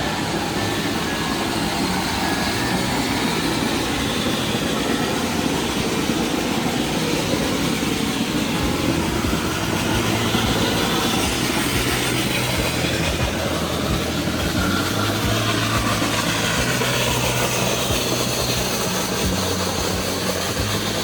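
Steady mechanical running noise with a low, even hum underneath, holding at one level throughout.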